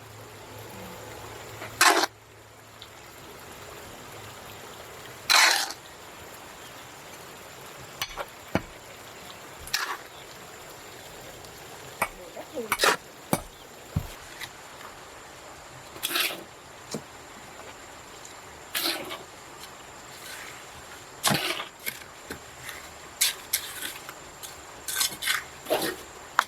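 Irregular sharp knocks and clinks from hand work on a foundation, one every second or two, over a steady hiss.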